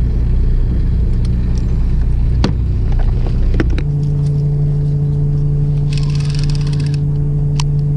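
A fishing boat's engine runs with a steady low drone, with a couple of sharp knocks. A little before halfway it switches abruptly to a steadier hum. Near the end there is about a second of rapid clicking.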